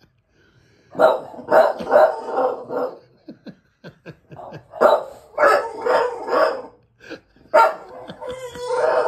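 Bulldog barking in bursts of quick barks, with short pauses between the bursts.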